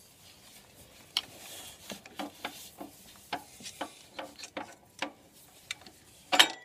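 Light metallic taps and clinks, roughly two a second, from a small hammer tapping a split pin into the bottom mount of a Land Rover Series 2A shock absorber. A louder clank comes near the end.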